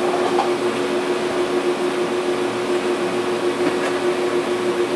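TIG welding setup running, a steady hum over an even hiss with no change in level.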